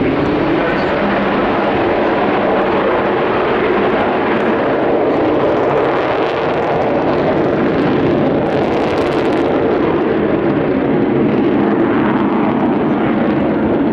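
The four Olympus turbojets of the Avro Vulcan XH558 delta-wing bomber at high power as it climbs away, a loud steady jet roar with a steady low hum running through it.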